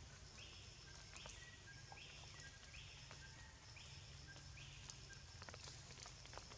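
Faint forest ambience: a series of short, buzzy calls repeating a little more than once a second, which stop about five seconds in, over a low rumble with a few soft clicks.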